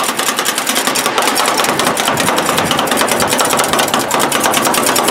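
Two metal spatulas chopping ice cream base on the frozen steel plate of a rolled ice cream pan, with rapid, even clacks, many strokes a second, as the mix is chopped to freeze.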